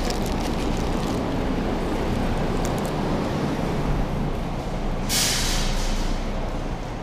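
Steady low rumble of a store entrance while walking through, with a paper food wrapper crinkling faintly near the start. About five seconds in, a rush of air hisses for about a second while passing through the open automatic exit doors.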